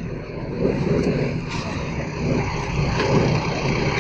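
Road traffic: a motor vehicle's engine running, with a steady rumble. A few light clicks come from small phone parts being handled.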